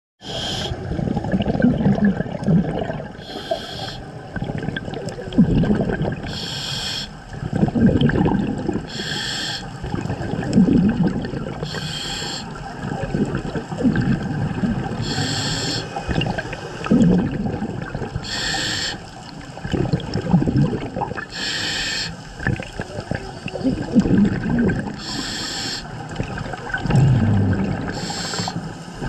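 Scuba diver breathing through a regulator underwater. Each inhalation gives a short hiss, about every three seconds, and each exhalation bubbles and gurgles between them.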